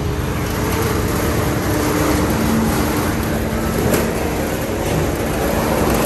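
Steady, loud rumble and din inside a car ferry's vehicle deck, with a low hum holding one pitch over it.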